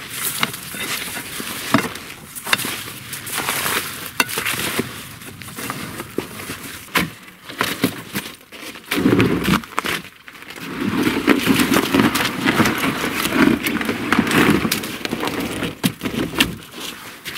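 Ice and frozen slush being chipped and broken with a metal hook around a snowmobile frozen into overflow, in many sharp cracks and knocks with crunching and scraping. A louder, denser stretch of crunching runs through the middle.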